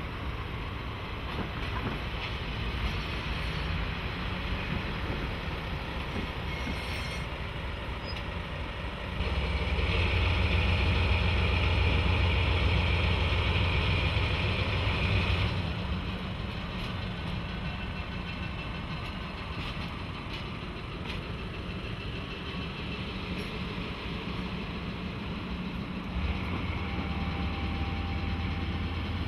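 JNR DE10 diesel locomotive running with a steady low engine rumble, growing clearly louder from about nine seconds in for around six seconds, then easing, and rising again near the end.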